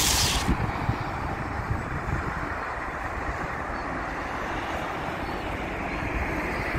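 Steady road traffic noise, an even low rumble from a highway. A loud hiss from a video-transition effect cuts off about half a second in.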